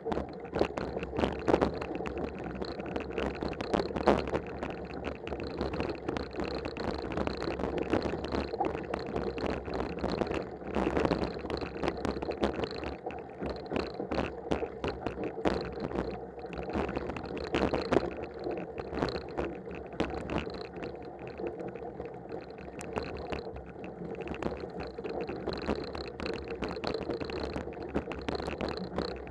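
Mountain bike riding over a snow-covered trail: a steady rumble of tyres on snow, broken by frequent knocks and rattles from bumps.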